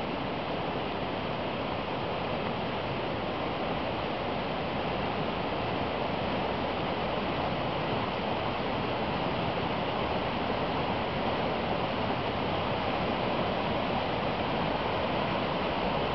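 Water rushing down a cascading brook's falls, running high with spring floodwater: a steady, unbroken rush that grows slightly louder toward the end.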